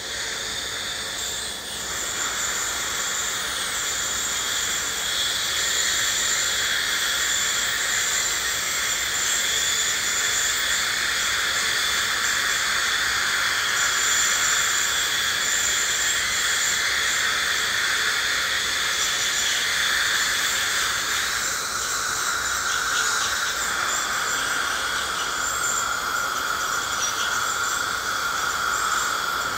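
Ultrasonic dental scaler running against tartar-covered teeth: a steady high-pitched whine over the hiss of its water spray. The hiss shifts slightly lower in tone about two-thirds of the way through.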